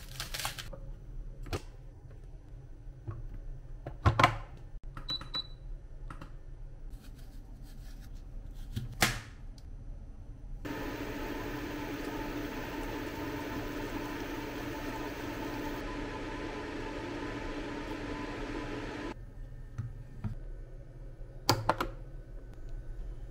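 Scattered taps and knocks of food and containers being handled, then about eight seconds of steady bubbling from noodles boiling hard in a pan on an electric hot plate, which cuts off suddenly. A sharp click comes near the end.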